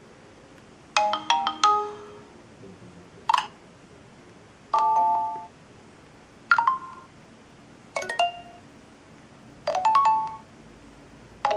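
A BQ Aquaris E4.5 smartphone plays its built-in notification tones one after another through its loudspeaker. There are about seven short chimes and beeps, each a second or less long, with a new one every one and a half to two seconds.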